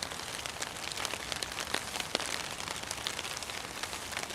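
Rain falling on a sil-poly tarp, heard from underneath: a steady hiss with many small, separate drop hits on the fabric.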